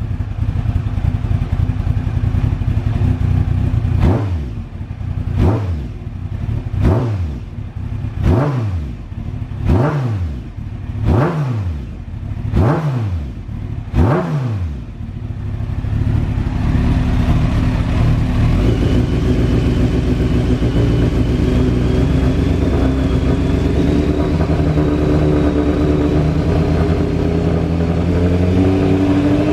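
Kawasaki ZX-12R's inline-four engine through an Ohnishi Heat Magic aftermarket exhaust, its throttle blipped about eight times in quick succession, each rev rising and falling back. For the second half it settles into a steady idle.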